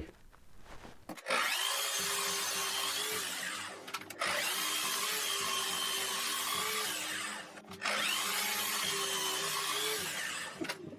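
Power tool working wood in three runs of about three seconds each, its motor whine rising at the start of each run and then holding steady.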